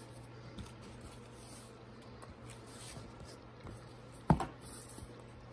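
Small paper gift boxes being handled in a cardboard carton: soft rustling and shuffling of paper and cardboard, with one sharp knock about four seconds in, over a steady low hum.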